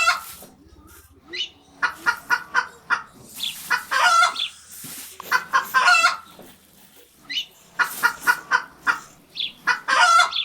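Chickens clucking: runs of short, quick calls with brief pauses between them.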